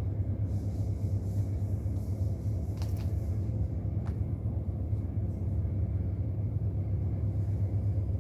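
Steady low machinery drone, with two faint light clicks about three and four seconds in.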